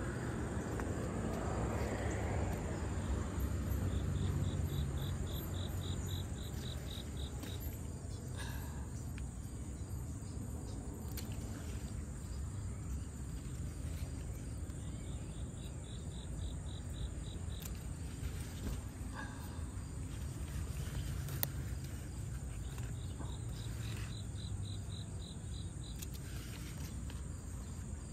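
An insect calls in trains of even, high pulses lasting about three seconds, three times over. A few sharp snips from hand pruning shears cutting yardlong bean pods off the vine are heard between them.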